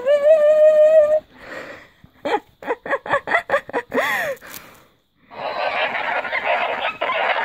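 Snowgie Mini Snowman Chatterback plush toy repeating a sung line back, ending on a held note about a second in, then a quick run of short squeaky chatter. From about five seconds in, a few seconds of rustling as the plush and its cardboard box are handled.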